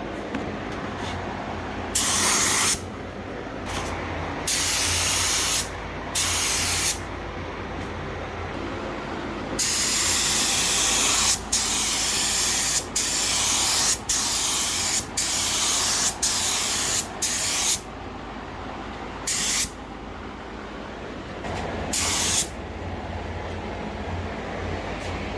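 Compressed air hissing from a pneumatic air gun in repeated trigger bursts, some short and one long run of quick bursts in the middle, over a steady low hum.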